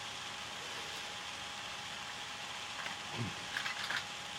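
Steady hiss from the laptop's recording, with a brief low hum about three seconds in and a few soft clicks and rustles near the end as plastic miniatures are handled.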